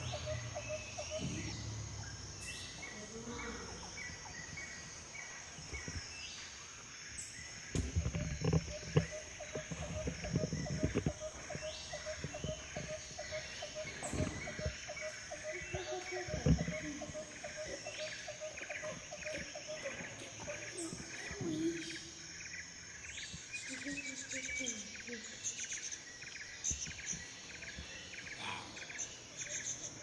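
Forest nature ambience: a steady high insect drone and regular pulsing chirps, with birds giving repeated short falling calls. A few louder low sounds come through partway in.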